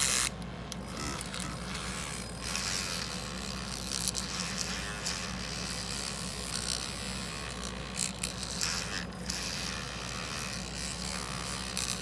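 Electric toothbrush rigged as a vibrating lock pick, buzzing steadily while its wire tip scrapes and rattles against the pins inside a small padlock held under tension.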